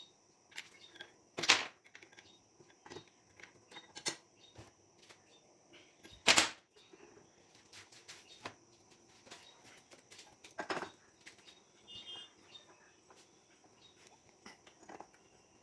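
Scattered clicks and knocks of metal tools and engine parts being handled, with two louder knocks about a second and a half in and about six seconds in.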